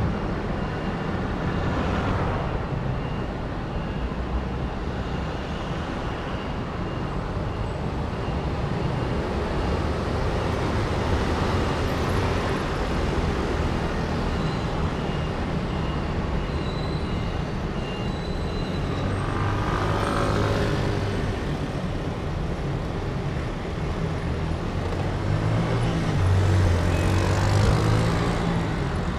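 City road traffic at an intersection: buses, cars and motor scooters running with a steady engine hum. Several vehicles pass louder, about two seconds in, around the middle and again near the end.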